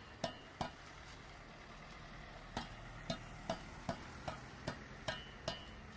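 A series of short, sharp knocks, like a hand tool striking the cold-patch asphalt. There are two near the start, then a steady run of about two to three a second from midway, some with a short metallic ring.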